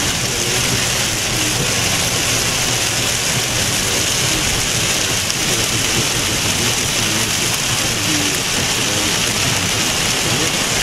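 Heavy rain beating on a car's windshield and roof, heard from inside the cabin as a steady, dense hiss.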